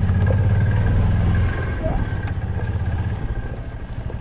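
Small engine of an off-road golf cart running. It drops back about a second and a half in, then eases off near the end into a fainter, pulsing putter.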